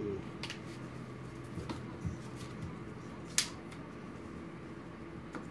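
A few small clicks and taps from hands handling small objects on a countertop, the sharpest about three and a half seconds in, over a low steady hum.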